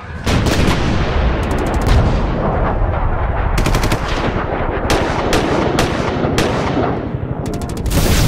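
Sound effect of rapid automatic gunfire: a dense, continuous stream of shots with sharper cracks standing out every second or so, swelling again near the end.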